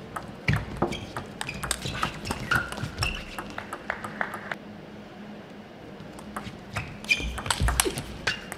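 Table tennis ball clicking back and forth off the bats and the table in two fast rallies, with a short pause between them. A few short high squeaks come among the hits.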